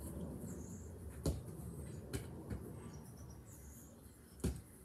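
A football kicked on a garden lawn: two sharp thuds, about a second in and again near the end, with a couple of lighter knocks between, over outdoor background with faint high chirping.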